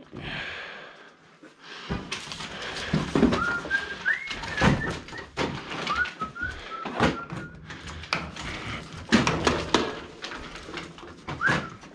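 Metal clicks and clanks of pliers working at a fitting on a white household appliance, broken by several short high squeaks that rise and then hold.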